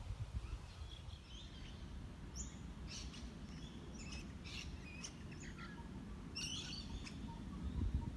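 Several short, high bird chirps and calls, mostly in the middle few seconds, over a low steady rumble.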